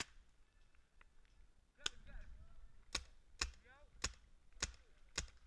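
Paintball marker firing single shots: one shot, a pause of nearly two seconds, then six more shots about half a second to a second apart.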